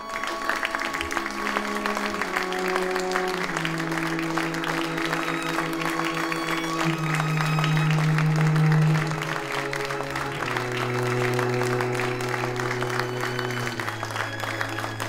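Audience applauding, starting at once, over closing music whose long held low notes step down in pitch.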